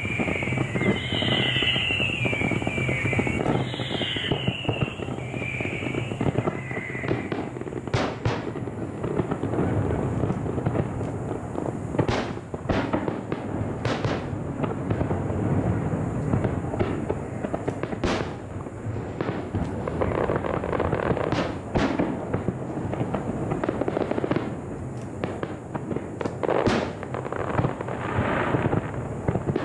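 Aerial fireworks display: a dense, continuous crackle of bursting shells with single sharp bangs standing out about six times, spaced a few seconds apart.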